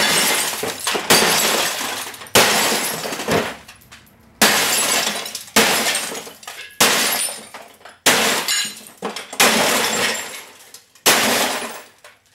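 Philips Magnavox television's glass being smashed with about nine hard blows, roughly one a second, each followed by a trail of breaking, falling glass that dies away before the next.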